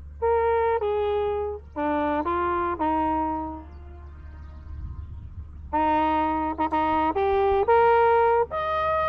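A solo brass horn, trumpet-like, playing two short phrases of separate held notes with a pause of about two seconds between them, over a low steady hum.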